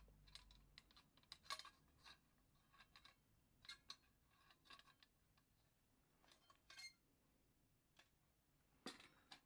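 Faint, irregular small metal clicks and clinks from the parts of a Coleman 508A gasoline stove being handled: the generator tube knocking against the burner bowl and bracket. A sharper click comes near the end.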